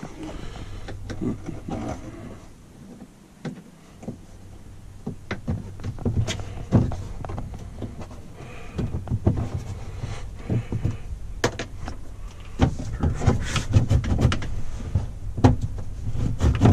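Plastic push-pin trim clips being pried out of a Polaris RZR XP 1000's floor and console panels with a pick tool: irregular clicks, knocks and plastic rattles. They grow busier and louder in the second half, over a low steady hum.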